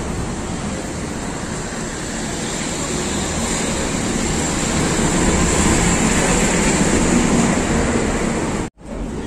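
Steady rush of road traffic noise that cuts out briefly near the end.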